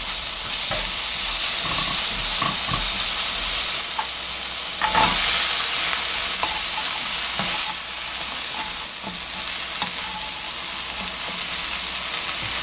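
Dried anchovies and minced garlic sizzling in hot oil in a nonstick wok, stirred with a silicone spatula that scrapes and knocks against the pan. About five seconds in the sizzle surges as sweet potato stems go into the pan, and the stir-frying continues.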